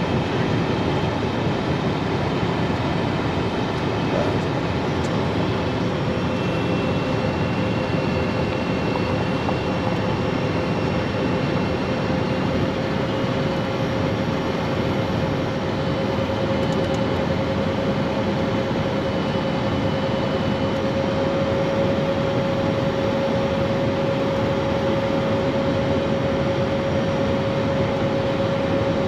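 Steady rush of airflow and turbofan noise inside the cockpit of an Embraer Phenom 100 light jet on approach, with two Pratt & Whitney PW617F engines. A faint whine comes in about six seconds in and creeps slowly up in pitch.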